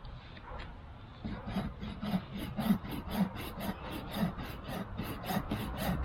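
Small folding pull saw cutting through a tree branch with quick, even back-and-forth strokes, starting up again after a short pause about a second in.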